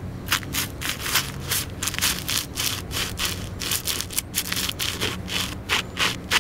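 Sebago beefroll loafers grinding and scuffing crushed dry oatmeal against concrete, making quick gritty scraping strokes several times a second.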